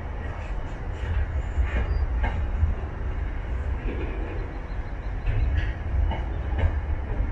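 Container freight train rolling past, its wagons' steel wheels giving a continuous low rumble with scattered clicks and knocks on the rails.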